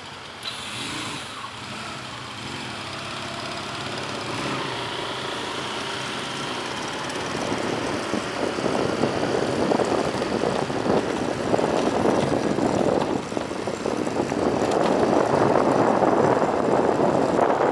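Police motorcycle engine running close by, its sound growing steadily louder from about eight seconds in.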